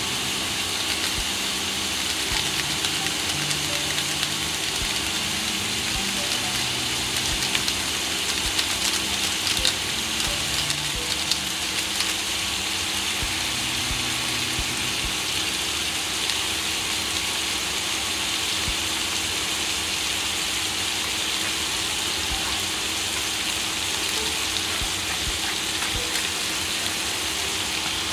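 Chicken pieces and sliced onion frying in oil in a pan, a steady sizzling hiss with scattered crackles about a third of the way in.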